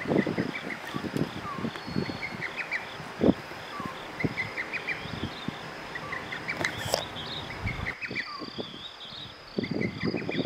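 Night insects, crickets, chirping in a steady repeating pulse over a faint background hiss. A few soft low knocks and rustles, one louder about three seconds in.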